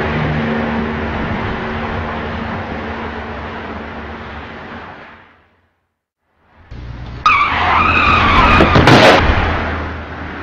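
A rumbling noise fades away over about five seconds, then after a brief silence a car's tyres screech with a wavering pitch as it skids, ending in a loud crash impact about a second and a half later.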